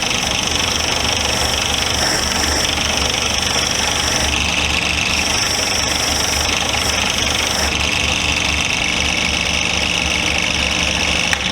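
Chainsaws running steadily, their pitch shifting now and then as they are worked, together with a loud steady machine drone; the loudest part cuts off right at the end.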